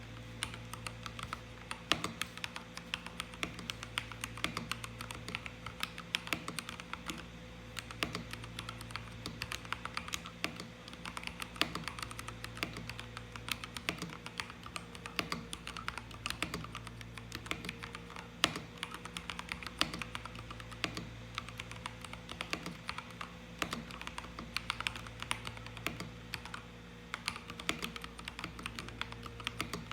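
Steady typing on a modded LTC Nimbleback 65% mechanical keyboard: a quick, continuous stream of keystrokes with a few louder strikes here and there, over a faint steady hum.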